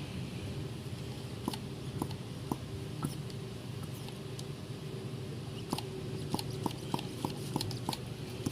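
Light sharp clicks from hand work on the engine: scattered at first, then a regular run of about three a second in the second half, over a steady low hum.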